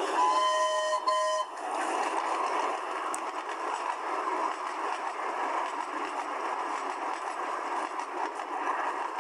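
Steam locomotive whistle sounding once for just over a second, with two or three steady notes together, over a steady rushing noise that carries on after the whistle stops.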